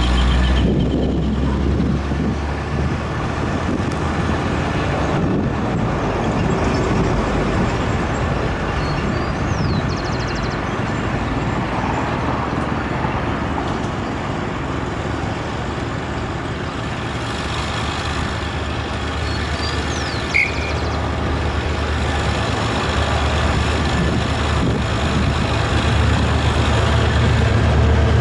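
GM GT22 diesel locomotive running as it approaches: a low engine drone under a steady rushing noise, the drone growing louder in the last few seconds.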